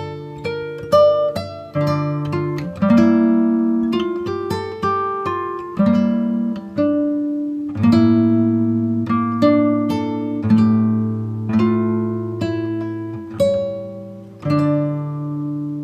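Background music: acoustic guitar picking slow, ringing chords.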